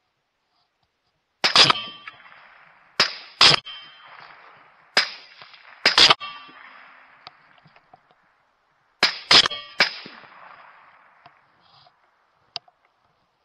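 Rifle shots at coyotes, about ten sharp reports in four quick clusters, each trailing off in echo; a faint click near the end.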